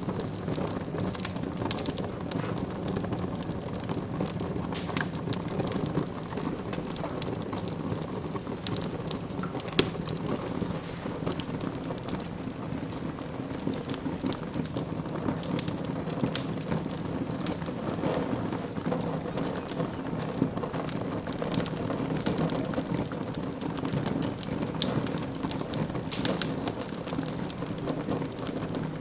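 Wood fire burning in a fireplace: a steady low rush of flames with frequent sharp crackles and pops scattered throughout.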